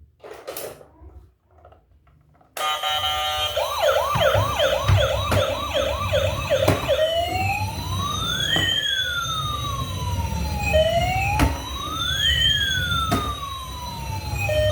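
Toy emergency vehicle's electronic siren switching on about two and a half seconds in. It gives a quick yelp of fast rising-and-falling sweeps, then a slower wail that rises and falls twice. A steady low rumble and a few sharp clicks run underneath.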